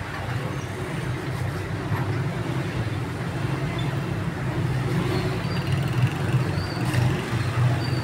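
Steady low rumble of road traffic, with a few faint short high chirps over it.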